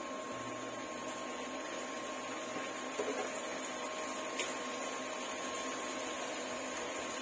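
Tofu, mushrooms and bell pepper cooking in oyster sauce in a pan: a steady hiss with a faint steady hum under it, and a couple of light clicks about midway.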